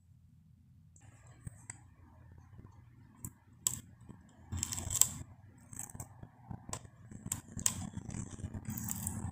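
Box and packaging being handled and unpacked: rustling with scattered sharp clicks and knocks, the loudest about five seconds in.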